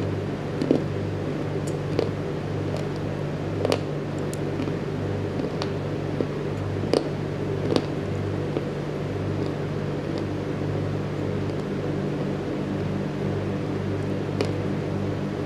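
Pieces of baked clay pot lid being bitten and chewed: a few short, sharp crunches, most in the first half and one more near the end. Under them, a steady hum that pulses rhythmically.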